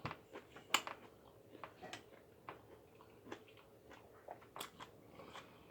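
Faint chewing and wet mouth clicks of someone eating, a scatter of small irregular clicks.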